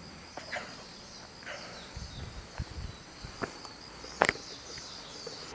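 Footsteps on gravel and stone steps, about one a second, with a sharper knock a little past four seconds in, over a steady high chirring of insects.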